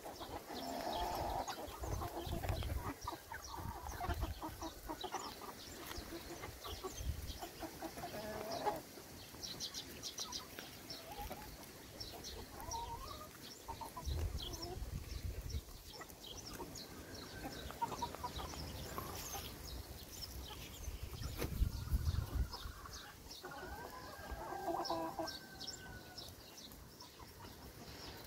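Domestic hens clucking on and off as they feed, in short repeated calls that come in clusters. A few low muffled bumps, the loudest about three-quarters of the way through.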